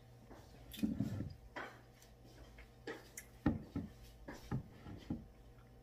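A plastic drink bottle being picked up and handled with a few short knocks, then a series of gulps and swallows as someone drinks from it, close to the microphone.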